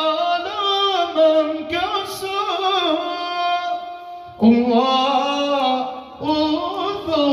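Islamic devotional nasheed singing: long, drawn-out vocal phrases with sliding pitch and no clear words. There is a brief break a little over four seconds in, before a new phrase starts.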